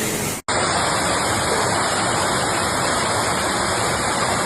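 Steady rushing noise of heavy water, floodwater or a downpour, starting after a brief drop-out about half a second in.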